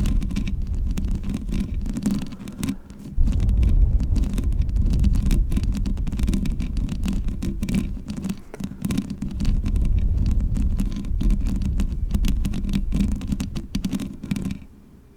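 Long fingernails scratching and rubbing right on a microphone, a dense low rumble full of quick small clicks. It dips briefly about three seconds in and fades out near the end.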